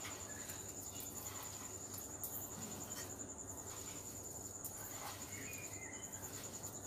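A steady, high-pitched insect trill, like a cricket, with faint soft rustles of hands mixing moistened flattened rice and spices in a bowl.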